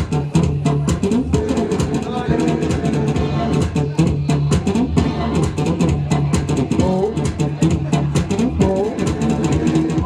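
Loud electronic dance music with a steady driving beat and heavy bass, played by a DJ over a club sound system.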